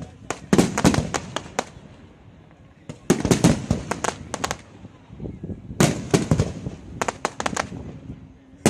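Aerial fireworks shells bursting: four volleys of rapid, sharp bangs, with short quieter gaps between them.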